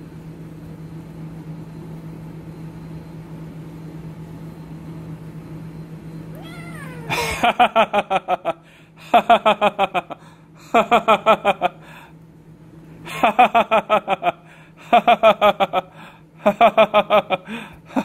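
Loud cartoon-style laughter, a rapid 'ha-ha-ha-ha', starting about seven seconds in and repeating in a string of second-long bursts with short gaps. Before it there is only a low steady hum.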